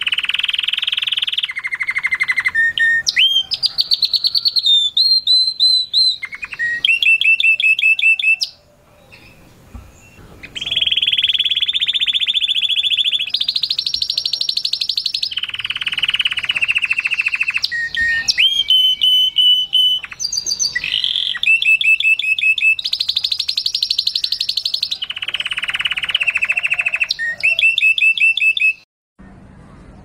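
Domestic canary singing a long, loud song of rapid trills, each phrase a quick run of the same note repeated, with one short pause about a third of the way in. The song stops just before the end.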